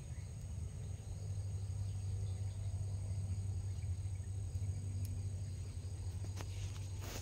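Outdoor ambience: a faint, steady high-pitched insect drone over a steady low rumble, with a few short clicks near the end.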